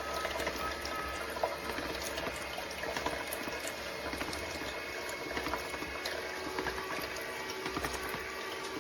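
Steady sound of running liquid, like water flowing, with faint scattered ticks.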